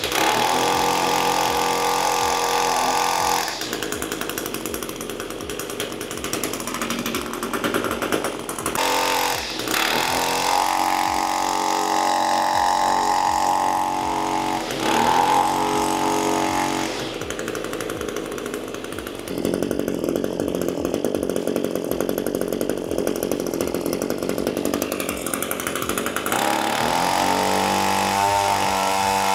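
Echo 225 string trimmer's small two-stroke engine running on its newly fitted carburetor and spark plug, revved up to high speed and dropped back to idle several times: high at the start, rising again about ten seconds in, briefly again around fifteen seconds, and a last rise near the end.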